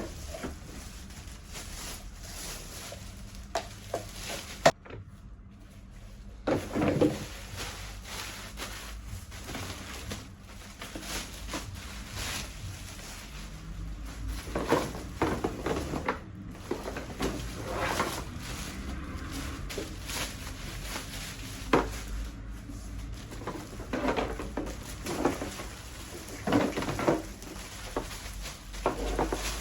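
Irregular knocks, clatters and rustles of baby high chair parts being handled and set down on a surface.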